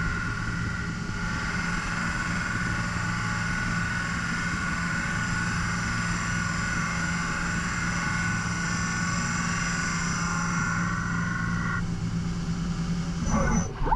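CNC mill-turn machine dry-turning a spinning cast iron brake rotor with a ceramic finishing insert: a steady machine whine with a low hum under it. The higher whine stops about two seconds before the end, and an irregular, louder sound comes in at the very end.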